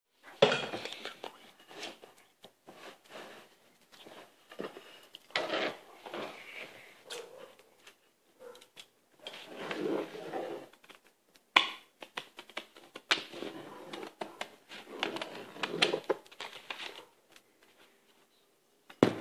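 Hands handling paper and an upturned bowl on a tabletop while a pencil scratches around the bowl's rim to trace a circle, in irregular bursts of scraping and rustling with scattered sharp knocks and clicks.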